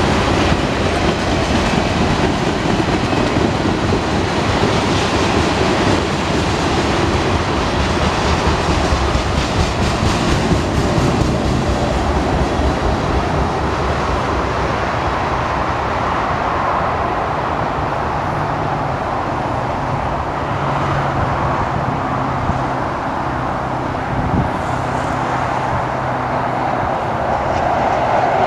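Union Pacific mixed freight cars rolling past, their wheels clicking over the rails. The sound thins out in the first ten seconds or so as the end of the train goes by. Steady freeway traffic with passing trucks then takes over and swells near the end.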